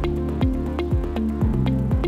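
Upbeat electronic background music: sustained synth chords over a steady kick-drum beat about twice a second.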